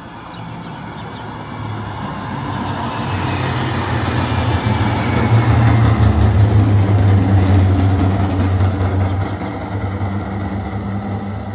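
A coupled pair of low-floor trams passing close by: wheels running on the rails with a steady low electric hum, growing louder as they approach, loudest as they pass about halfway through, then fading.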